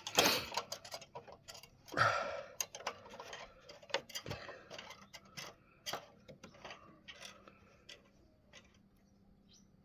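Irregular light clicks and knocks from handling the petrol lawn mower's oil dipstick and filler cap, with brief rustling scrapes at the start and about two seconds in. The clicks thin out toward the end.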